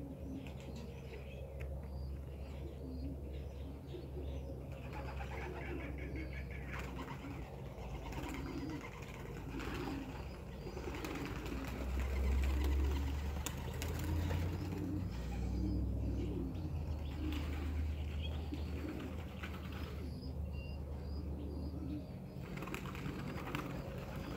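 Racing pigeons cooing in short, repeated low notes, with wings flapping now and then.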